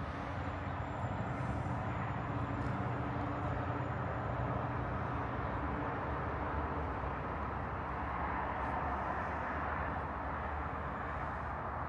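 Street traffic noise: a steady rumble with the low hum of a vehicle engine, which eases after about five seconds.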